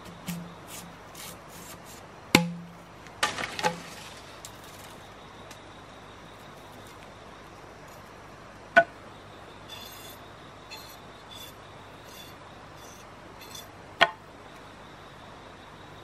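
Digging in forest soil with a machete and a bamboo digging stick: a handful of sharp knocks and clinks of the blade, with fainter scraping and ticking in between.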